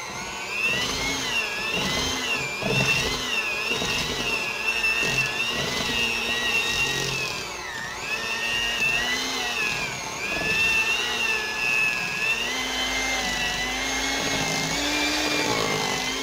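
Electric mixer motor running as it beats cream cheese smooth. Its whine wavers up and down in pitch as the load changes, with a brief dip about eight seconds in.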